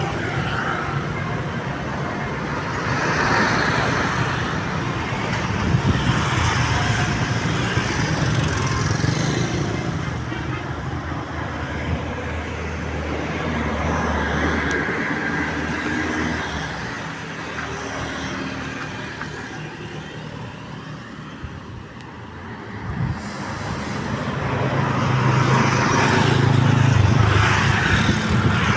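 Road traffic: motor vehicles passing, their engine and road noise swelling and fading about three times, loudest near the end.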